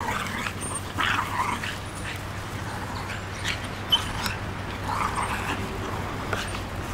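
Two Border terriers playing rough together, with irregular short bursts of dog noises. A steady low hum runs underneath.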